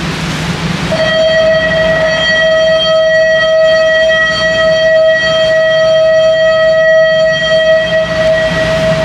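A long, steady tone with a row of overtones starts about a second in and holds at one pitch, over the steady running noise of a sightseeing boat's engine and the water.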